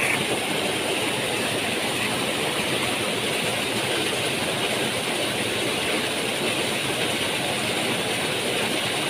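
Small waterfall in a rocky mountain stream rushing steadily: an even, unbroken noise of falling white water.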